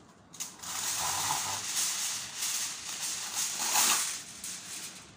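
Aluminum foil crackling and rustling as a sheet is pulled from its box and handled, loudest near the end.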